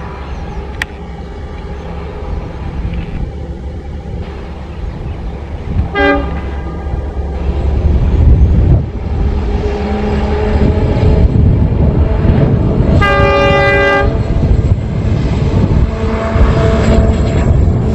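WDP-4D diesel locomotive sounding its horn: a short toot about six seconds in and a longer blast of about a second past the middle. The locomotive's engine and the passing train keep up a steady low rumble underneath, which grows louder after about eight seconds.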